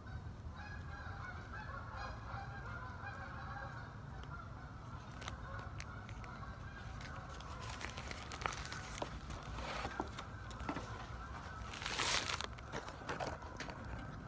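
Geese honking over and over for the first eight seconds or so, under the rustle of a cheeseburger's paper wrapper and chewing. A louder crinkle of the wrapper comes about twelve seconds in.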